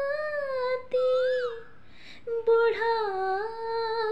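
A woman singing a slow Nepali song alone, without accompaniment: long held notes that waver in pitch, a brief pause with an audible breath about two seconds in, then the next held phrase.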